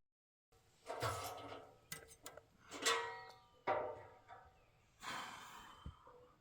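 Quiet background music: a handful of single plucked notes, each ringing briefly and fading out.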